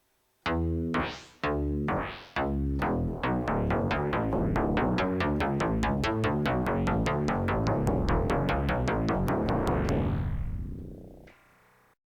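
Yamaha DX9 four-operator FM synthesizer playing a demo patch: three separate struck notes, then a run of rapidly repeated notes that speeds up and fades out near the end.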